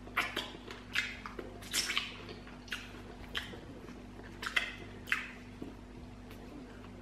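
Wet mouth sounds of eating fried chicken: irregular short smacks and sucks as meat is picked off a chicken bone with the lips and fingers are licked clean.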